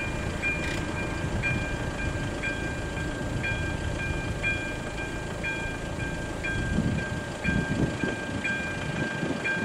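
AŽD ZV-02 electronic warning bell of a level crossing ringing: a chiming tone struck about once a second. It is the warning that the crossing is closed for an approaching train.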